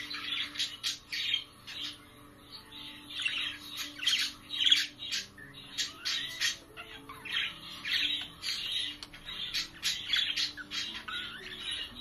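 Budgerigars chirping and chattering in quick bursts of high chirps and warbles, broken by short pauses.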